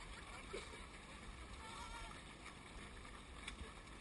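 Faint footfalls of a large group of runners passing on a path, with scattered distant voices over a low wind rumble on the microphone.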